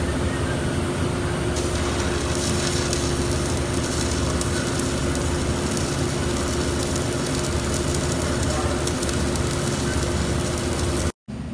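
Electric welding arc on the steel of a vibratory roller, crackling steadily over a low steady hum, cut off abruptly near the end.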